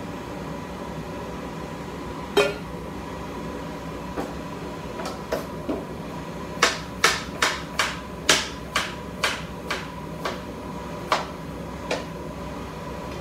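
Kitchen knife chopping onion on a cutting board: a few scattered knocks, then a run of about ten sharp chops at roughly two a second, with two more near the end, over a steady background hum.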